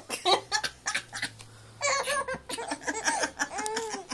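Three-month-old baby laughing in a run of short, breathy bursts, then longer high-pitched laughing sounds from about halfway through, a response to her mother's cough.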